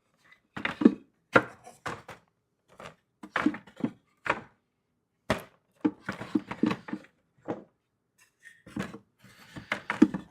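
Wooden beehive frames being set down into a cedar hive box one after another, giving an irregular run of wooden knocks and short clatters.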